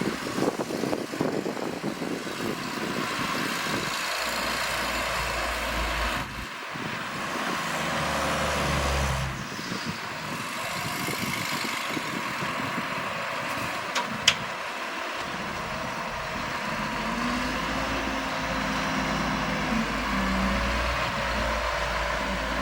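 Heavy diesel engines of earthmoving machinery (bulldozer and dump truck) running, with the engine note rising and falling at times. There is a single sharp knock about two-thirds of the way through.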